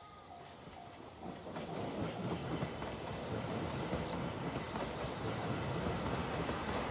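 JR Shikoku 2700-series diesel limited express train approaching. Its running noise builds steadily from about a second in.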